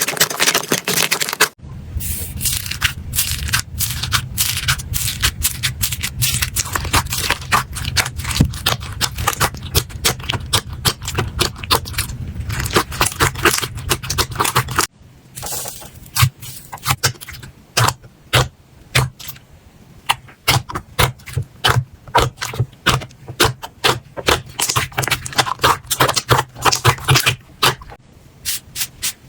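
Slime being squeezed and pressed by hand, giving a dense run of small crackling clicks and pops. The sound changes abruptly about a second and a half in and again about halfway through, as one slime gives way to another.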